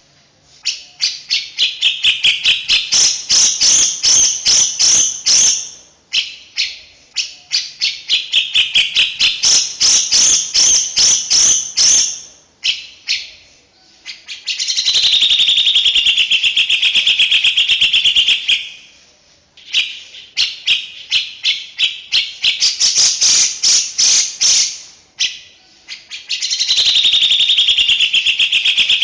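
A songbird's dense, harsh chattering song, played as a masteran tutor recording: long phrases of fast repeated notes that speed into a trill, alternating with phrases of continuous buzzy rattling, separated by short pauses.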